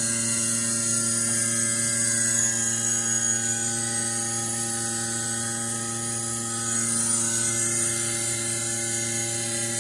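Electric vacuum pump of a pail milking machine running with a steady hum.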